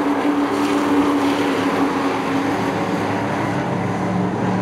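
A pack of short-track race trucks at speed, their engines running together in a steady, loud drone. The main engine note drops in pitch near the end.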